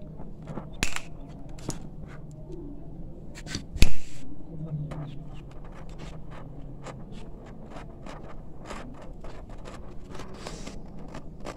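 Small clicks and scrapes of a hand working a lighter over a metal dish of melting candle wax, with a sharp click just under a second in and one much louder click about four seconds in.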